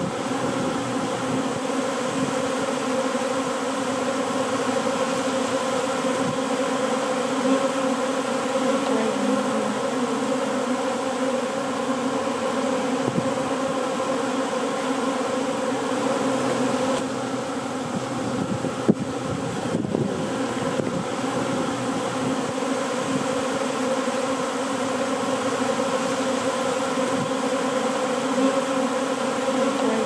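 A swarm of honeybees buzzing in a steady, many-voiced drone as the bees crowd and fly around the entrance of their new hive, many fanning their wings there. A single sharp click about nineteen seconds in.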